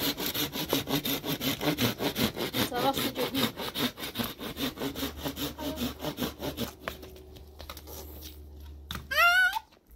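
Hand saw cutting a dry branch of firewood in quick, regular back-and-forth strokes, which stop about seven seconds in. Near the end a child's voice calls out briefly and loudly.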